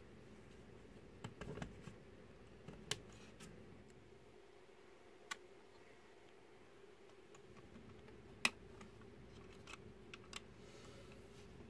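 Sparse light clicks and taps of plastic LEGO Technic parts being handled and set down, with one sharper click about two-thirds of the way through.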